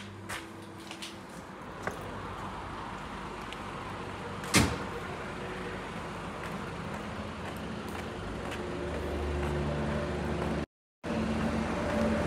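Truck diesel engine running, with a few light clicks and one sharp knock about four and a half seconds in. The engine grows louder over the last few seconds, with a brief total dropout near the end.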